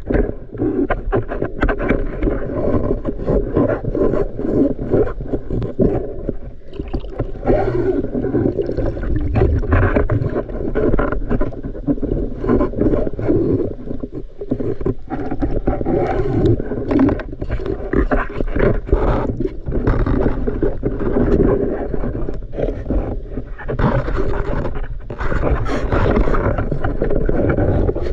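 Muffled water noise picked up underwater: a steady, churning rush and gurgle of river water, with scattered clicks and knocks.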